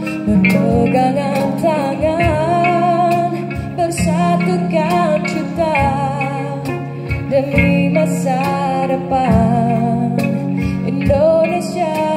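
Two electric sasandos, the tube zither of Rote island, plucked in a live band arrangement, with a woman singing the melody and a cajón keeping a steady beat.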